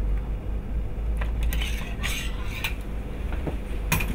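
Steel surgical instruments, a torque wrench and counter-torque handle, clinking against each other and the pedicle screw heads as they are lifted off and handled, with a few light metal clicks and a sharper knock near the end.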